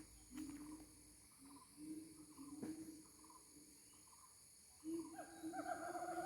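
Gibbon calling in a series of hoots, faint and spaced at first, then louder and faster about five seconds in.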